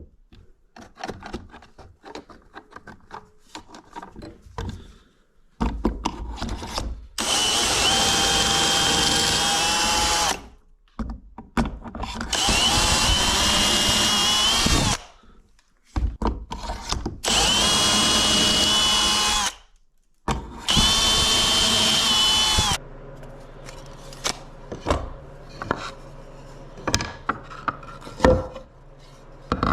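Power drill boring pocket holes in wood through a pocket-hole jig: four runs of two to three seconds each, with a high motor whine. Clicks of the jig and workpiece being handled come before the first run, and a low steady hum with a few clicks follows the last.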